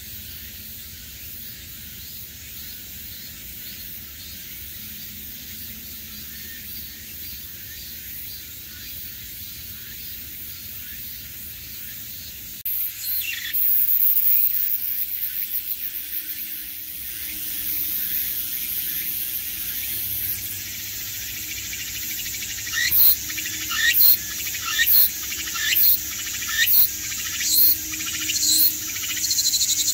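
Cicadas singing. A steady, high buzzing chorus gives way, about halfway in, to a much louder, close cicada. In the last third its song turns into regular pulsed calls, about one a second.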